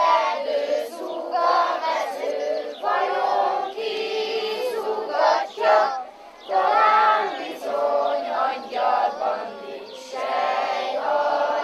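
A group of children singing a song together in high voices, phrase by phrase with short breaks between phrases.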